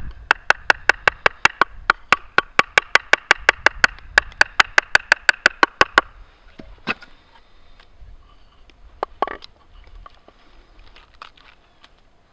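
A wooden stick rapidly tapping the top of an upright piece of wood on a chopping stump, batoning to split off more material, about five sharp knocks a second for roughly six seconds. Two single knocks and faint knife-shaving ticks follow.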